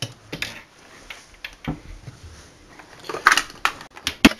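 Handling clatter as things are shifted to get at a projection CRT: irregular knocks and clicks with some rustling, busiest a little past three seconds in, ending with a sharp knock.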